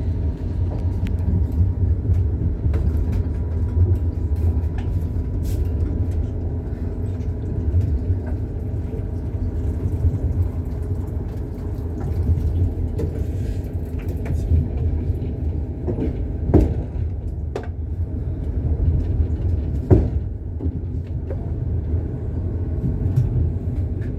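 Train running along the track, heard from inside the carriage: a steady low rumble with the clack of wheels over rail joints, and two sharper knocks about two-thirds of the way through.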